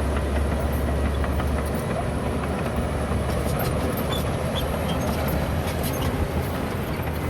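Bulldozer's diesel engine running under load, with a steady low drone that becomes rougher about two seconds in, and repeated metallic clicks and knocks from the machine working.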